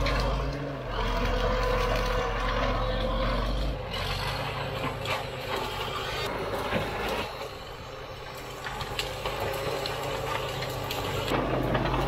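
Caterpillar D4 7U bulldozer's diesel engine running steadily under load, with clattering and crackling as it pushes through gorse scrub; the engine grows louder near the end.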